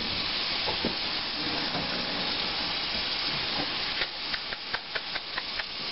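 Steady hiss, with a quick run of about ten light clicks or taps, roughly five a second, in the second half.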